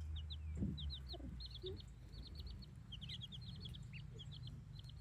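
Baby chicks and ducklings peeping: a steady stream of many short, high chirps, several a second, over a low rumble.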